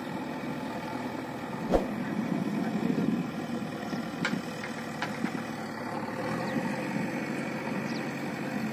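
JCB 3DX backhoe loader's diesel engine running steadily as the machine works, its front loader bucket being raised. A sharp knock sounds about two seconds in.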